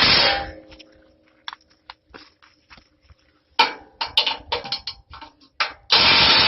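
Impact wrench running in a loud burst that stops about half a second in, leaving a metallic ring from the steel frame. Sharp metal clinks and knocks of tools and parts being handled follow, then another impact-wrench burst near the end.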